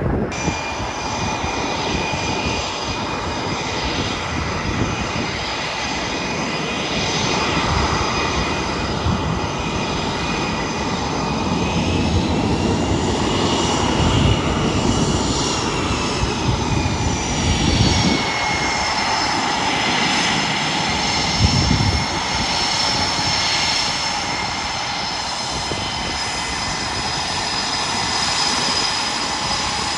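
Twin turbofan engines of a taxiing two-seat Boeing EA-18G Growler, a steady jet roar with high turbine whines over it. The whines rise in pitch about halfway through and sink again a few seconds later as the power changes.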